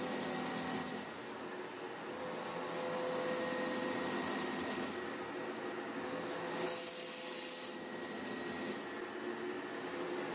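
KLINGELNBERG C29 bevel gear machine dry-cutting a spiral bevel gear: a steady machine whine under a hiss of cutting that dips and swells every few seconds, loudest about seven seconds in.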